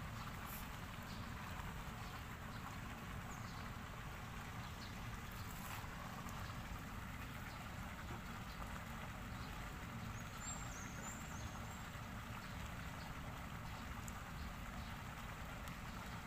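Steady outdoor background noise: a low rumble under a soft hiss, with a few faint clicks and a brief run of high chirps about ten seconds in.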